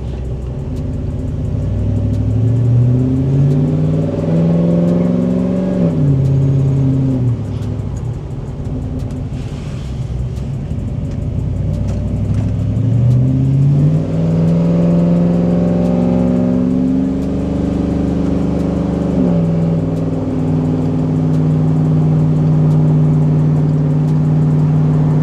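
Car engine accelerating through automatic upshifts: its pitch climbs steadily, drops suddenly at a shift about six seconds in, climbs again, and drops at a second shift near the end before settling into a steady cruise.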